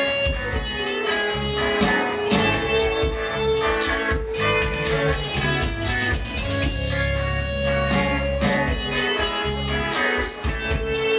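A live rock band playing, with electric guitars, bass guitar and drums keeping a steady beat. A long held note sits over the band.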